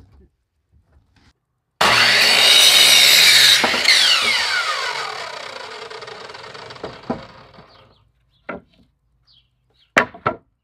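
An electric power saw cuts through a wooden board, starting abruptly about two seconds in. Its blade then winds down with a falling whine over several seconds. A few sharp knocks of lumber follow near the end.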